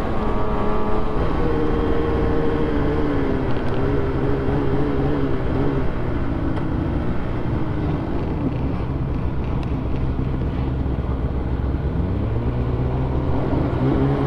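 Polaris two-stroke snowmobile engine running under way on a trail, with track and wind noise beneath it. The engine note climbs at the start, sinks about halfway through, then climbs again near the end.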